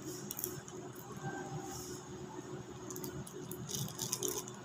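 Small plastic chili-sauce sachet being handled and torn open by hand: short bursts of crinkling plastic, busiest near the end.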